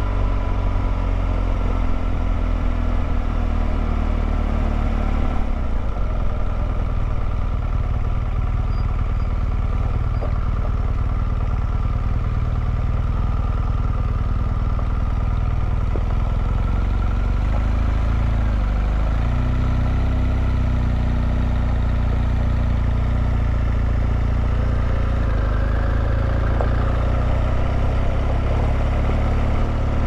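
Car engine running steadily at low speed with road noise. The engine pitch rises and falls once a little past halfway.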